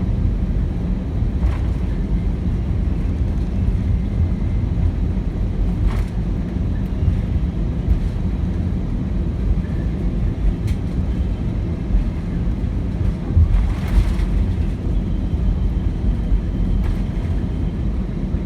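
Cabin noise aboard an Airbus A319 taxiing: a steady low rumble from the engines at idle and the aircraft rolling, with a few light clicks.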